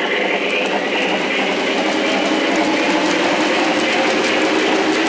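Three-rail O-gauge model freight cars rolling past on metal track: a steady rolling rumble with faint repeated clicks.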